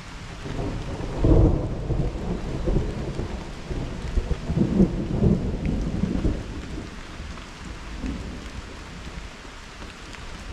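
A long peal of thunder over steady rain. The deep rumble swells about half a second in, rolls on in several surges, and dies away in the second half while the rain keeps falling.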